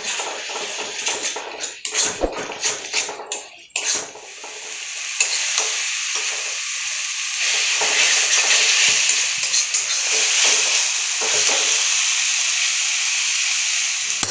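Metal spatula scraping and stirring a spiced onion masala frying in oil in a steel kadai, over a steady sizzle. Quick repeated scrapes in the first few seconds, then mostly an even sizzle with an occasional scrape.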